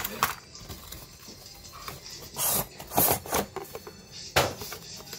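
Cardboard toy box being handled and opened by hand: several separate rustling, scraping bursts of the packaging, the sharpest about four seconds in.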